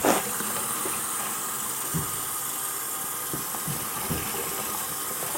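Tap water running steadily into a sink as a doll's hair is wetted under it, with a few faint low knocks.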